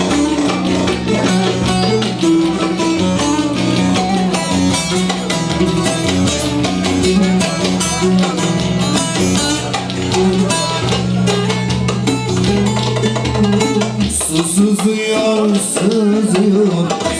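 Instrumental Turkish folk music: a plucked-string melody over a steady rhythm of percussion strokes. The low bass drops out about fourteen seconds in, leaving the melody and a bright high shimmer.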